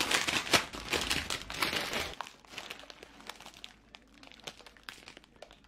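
Thin plastic bread bags crinkling and rustling as a hand rummages through them and lifts out a loaf. The crinkling is loud and dense for about the first two seconds, then thins to a few fainter crackles.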